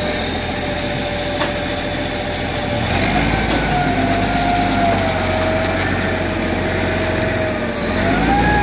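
Engine of a yellow boom crane running under load as it lifts an old truck by a chain. About three seconds in, the rumble deepens and a whine wavers up and down.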